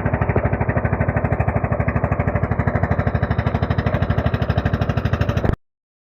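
Small boat engine running steadily with a fast, even pulse. It cuts off suddenly near the end.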